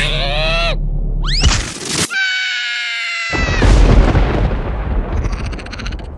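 Cartoon larva character's squeaky falling and rising cries and a held high-pitched wail, then a sudden loud explosive burst with a deep boom that fades over about two seconds: an exaggerated cartoon sneeze.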